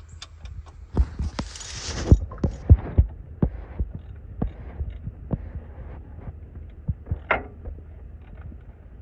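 A socket ratchet tightening a bolt on a small-block Chevy's mechanical fuel pump: irregular clicks and knocks of the tool on metal, with a short hiss about one and a half seconds in, over a low steady hum.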